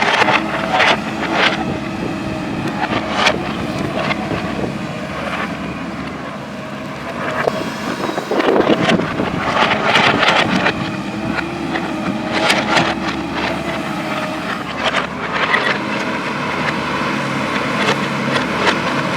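Diesel engine of a JCB backhoe loader running steadily under load, with repeated knocks and clatters through it.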